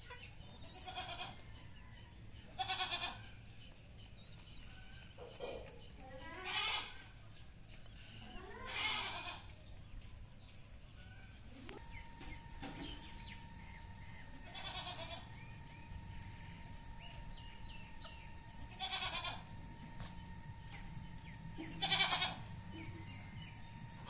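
A farm animal calling repeatedly, about nine loud calls of under a second each, with a wavering pitch, spaced a few seconds apart. A steady high hum starts about halfway through.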